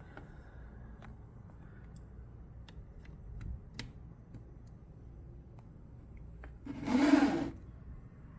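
Handling noises on a desk: scattered small clicks and taps, then one loud, brief scraping rub about seven seconds in, over a low background hiss.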